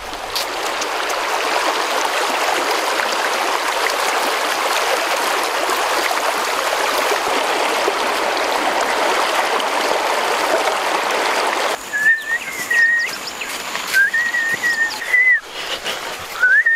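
Shallow stream water running over stones, a steady rushing that cuts off suddenly about twelve seconds in. Then a person whistles three short, nearly level notes, the last near the end.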